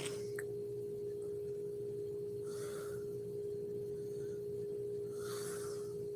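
A sleeping woman breathing softly between snores, two quiet breaths about three seconds apart, under a steady high-pitched hum.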